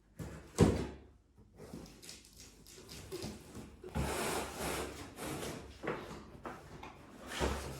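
Handling noises: a sharp knock about half a second in, a stretch of scraping or rustling in the middle, and another bump near the end.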